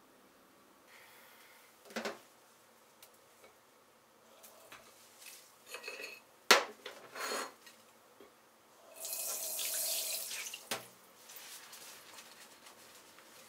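Washing up at a kitchen sink: dishes and a bowl knock and clink against the stainless basin, the loudest clack about six and a half seconds in. Then a tap runs for about two seconds and stops, followed by a knock.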